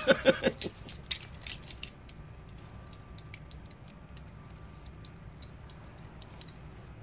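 Churchwarden tobacco pipe being puffed: a quick run of small lip smacks and pops on the stem in the first two seconds, then only faint scattered ticks over a low steady background rumble.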